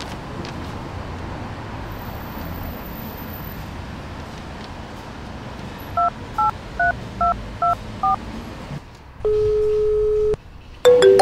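Steady street background noise, then six short touch-tone beeps as a number is dialled on a mobile phone. A single ringback tone about a second long follows as the call connects. Near the end a smartphone ringtone melody starts on the called Samsung phone.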